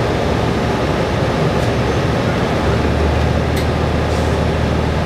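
Cabin noise inside a 2022 New Flyer XDE60 articulated diesel-electric hybrid bus: steady drivetrain and road noise. A low, steady hum sets in about halfway through, and there are a couple of brief clicks.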